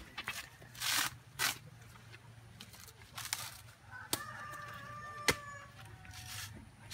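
A rooster crowing once: one long held call about four seconds in, lasting about two seconds. Around it come short rustles and a few sharp clicks.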